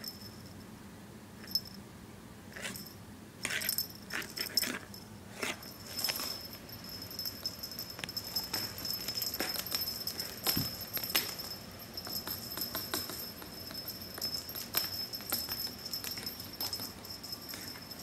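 Kitten playing with cat toys: a small bell jingling and rattling in irregular bursts, with light taps and clicks of the toys on a hardwood floor, busiest from about six seconds in.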